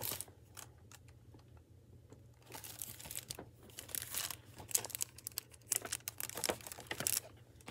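Crinkling and crackling of a library picture book's clear plastic jacket as the book is handled and tilted, in irregular clusters that start about two seconds in and run until shortly before the end.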